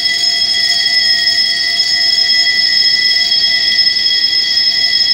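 A loud, steady, high-pitched electronic tone held without a break, several pitches sounding together.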